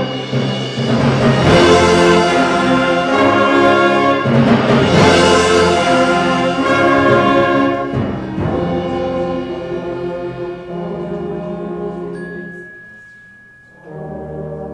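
Junior school concert band playing full, brass-led chords, with two big accented hits about 1.5 and 5 seconds in. The band then dies away to quiet with one high note held, and a soft chord comes in near the end.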